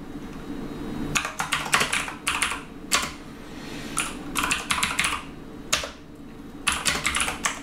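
Typing on a computer keyboard: rapid key clicks in several short bursts, separated by pauses of about a second.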